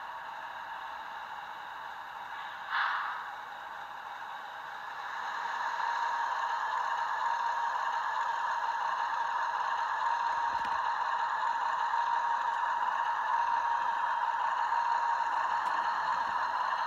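Simulated diesel engine sound of a Märklin 38440 HO-scale Union Pacific GE ES44AC model locomotive, played through its small onboard sound-decoder speaker. The engine sound is steady and tinny, with a short hiss about three seconds in. It grows louder from about five seconds in as the engine revs up and the locomotive starts off with its freight train.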